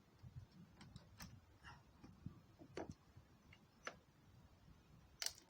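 Near silence broken by a few faint, irregular clicks and taps of small parts being handled on a chainsaw bench.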